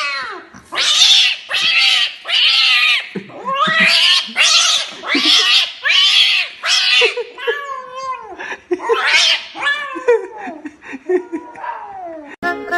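Kitten caterwauling: a string of about nine loud, short yowls rising and falling in pitch, roughly one a second, then lower, quieter drawn-out moaning growls. These are the alarmed, defensive cries of a cat frightened by a strange object. Music comes in just before the end.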